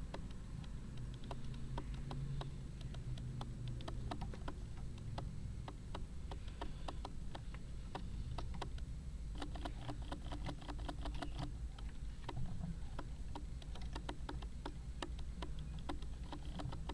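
Camera autofocus clicking, struggling to focus: rapid, irregular small clicks, several a second, over a low steady hum.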